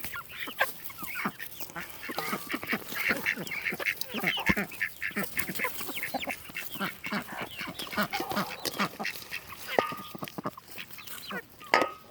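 Backyard flock of ducks and chickens calling continuously as they crowd in to eat, with ducks quacking over many overlapping short calls. A few sharp knocks break in, the loudest near the end.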